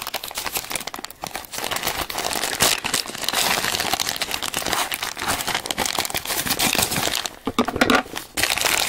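A shipping bag crumpled and squeezed by hand, crinkling and rustling irregularly as the contents are pulled out, with a brief lull near the end.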